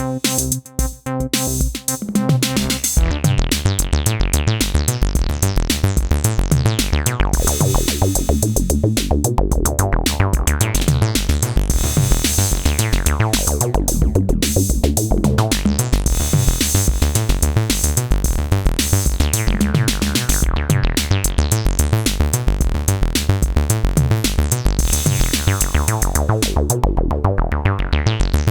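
Acid bass line from an Elektron groovebox playing over a drum-machine beat, with a resonant filter sweeping open and closed in slow repeating cycles. The pattern fills out about three seconds in.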